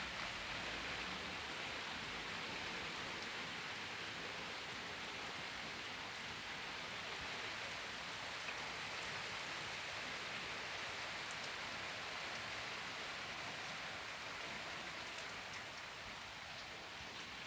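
Steady rain falling on wet paving slabs and garden plants, an even hiss with faint scattered ticks of single drops.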